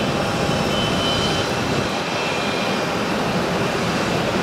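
Airbus A340-300's four CFM56 turbofans running at taxi power: a steady jet rumble with a faint high whine.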